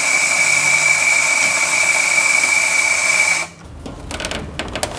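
Electric coffee grinder running steadily with a high whine, grinding a double-shot dose into the portafilter, and cutting off about three and a half seconds in. A few light knocks follow.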